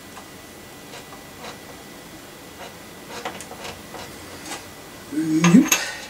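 Light metallic clicks and small scrapes of bicycle bottom-bracket parts being handled and fitted at the frame's bottom-bracket shell, turning to louder metal clinks about five seconds in, together with a short hummed voice sound.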